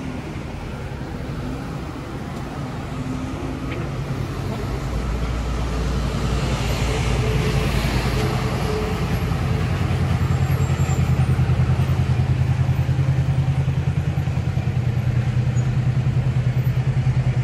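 A motor vehicle's engine running close by. It grows louder over the first several seconds, with a rush of noise about seven seconds in, then settles into a steady low hum.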